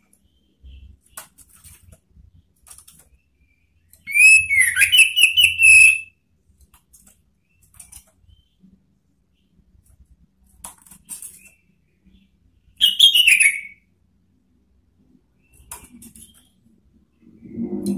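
Orange-headed thrush singing two loud bursts: a two-second phrase of sliding whistles with high twittering notes, and a shorter falling phrase about nine seconds later. In between come faint taps and wing flutters as it hops between the cage perches.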